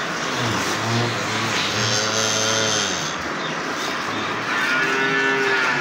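Dairy cattle mooing: one long, low moo lasting over two seconds, then a shorter, higher-pitched moo near the end.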